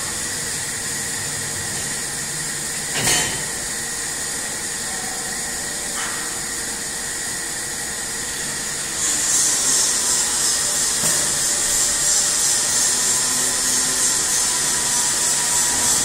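Stainless steel keg washer-filler machine running its cycle: a steady high hiss with a faint machine hum, a short loud burst about three seconds in, and the hiss getting louder about nine seconds in as another valve stage opens.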